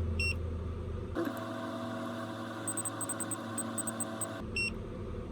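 Short electronic keypress beeps from a handheld automotive scan tool, one near the start and one near the end, over a steady hum. In the middle the background switches abruptly to a different steady hum with a run of light, irregular ticks.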